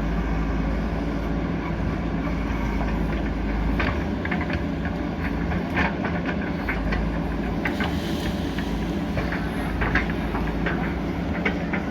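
JCB 3DX backhoe loader's diesel engine running steadily under load, with scattered metallic clanks and knocks from the bucket working the rock.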